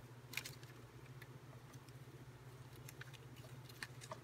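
Faint rustling and a few light clicks of paper scraps being sorted by hand in a clear plastic organizer tray, over a steady low hum.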